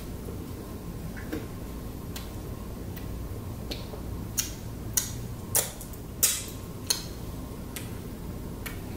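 Irregular sharp clicks and smacks of eating at a meal, about a dozen spread over several seconds, over a steady low hum.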